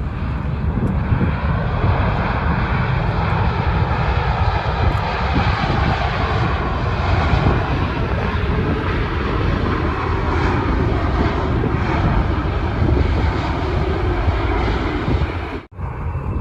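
An airliner's engines passing close by, a loud, steady noise with a deep rumble. The sound drops out abruptly for a moment near the end.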